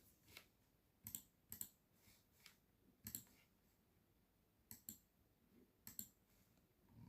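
Faint, slow clicking of computer keyboard keys and mouse buttons: separate clicks at irregular gaps, several in quick pairs.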